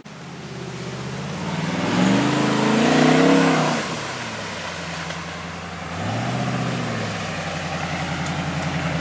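A 4x4's engine revs up and drops back about two seconds in, is blipped again more briefly about six seconds in, then runs steadily.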